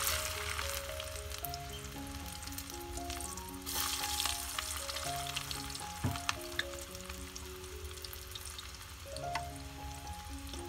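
Garlic slices sizzling in hot oil in an aluminium pan over a wood fire: a steady hiss with scattered crackles, with a fresh surge of sizzling about four seconds in.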